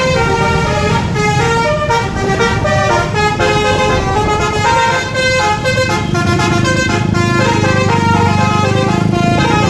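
Multi-tone "telolet" bus air horn (Basuri type) playing a fast melody, its notes jumping up and down several times a second, sometimes several at once, over a steady low rumble.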